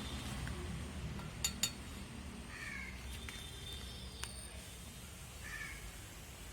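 Bird calls, a short call every few seconds, with two sharp clicks in quick succession about one and a half seconds in.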